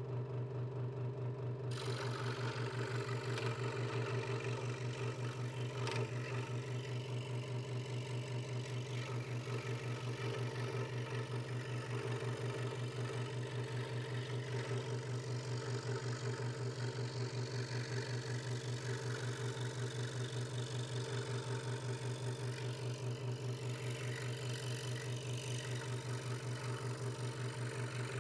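Hegner Multicut 2S scroll saw running at a steady speed, its blade stroking up and down with a steady hum and a fast even pulse. From about two seconds in the blade is cutting through a thin wooden board, adding a steady hiss of sawing.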